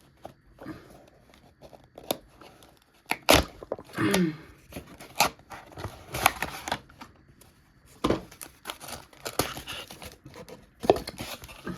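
Toy packaging being torn open and crinkled by hand: a series of sharp rips and crinkles with short pauses between them.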